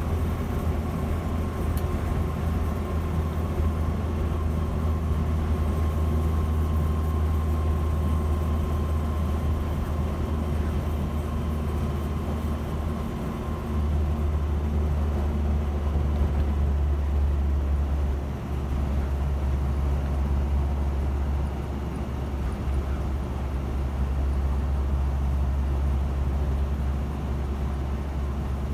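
Land Rover Series 3's 2.25-litre four-cylinder petrol engine running on the road through its newly fitted exhaust, a steady low drone with road noise, dipping briefly a few times. A faint steady whine sits above it in the first half.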